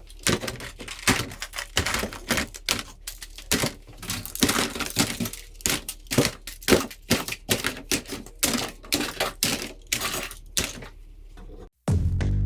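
Rapid, irregular hard clicks and clacks of plastic toy guns being handled. Music with a strong beat starts near the end.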